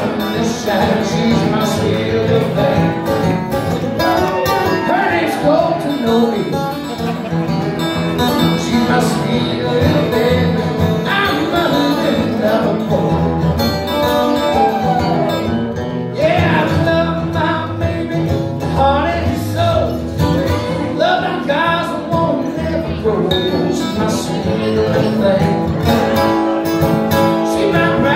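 Live acoustic country song: two acoustic guitars played together with a man singing lead into a microphone.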